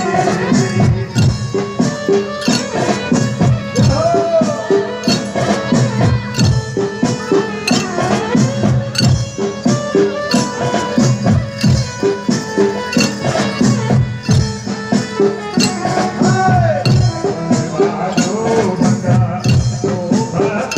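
Loud Indian garba folk music for Kali worship, with a fast, steady beat, jingling shaker-like percussion and a melody over it.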